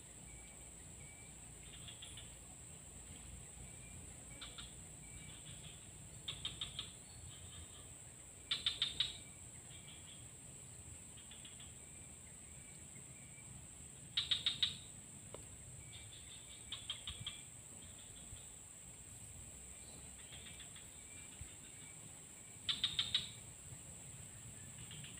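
Swamp wildlife: a steady high-pitched insect drone, with short, rapid chattering bursts from an animal, most likely a bird, about five times and every few seconds. Fainter chirps come in between.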